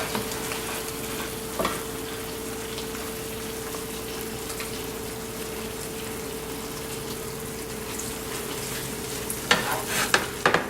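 Chicken rendang sizzling in the hot pan as it is spooned out, over a steady hum, with a few sharp clatters of the utensil against the pan near the end.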